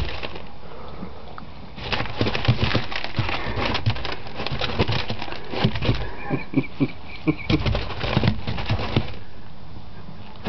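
Rat terrier puppy scrambling through corn in a bin: a dense rattling patter of shifting corn begins about two seconds in and dies away near the end. A brief thin high tone sounds in the middle.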